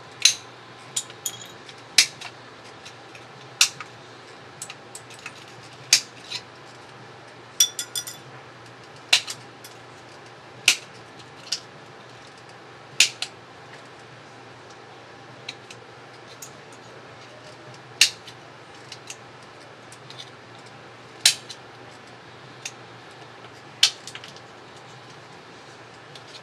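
Small plastic and metal parts of a laptop cooling fan and its housing clicking and tapping against each other and against a hand tool as the fan is handled and fitted. The clicks are sharp and irregular, a second or two apart, over a steady low hum.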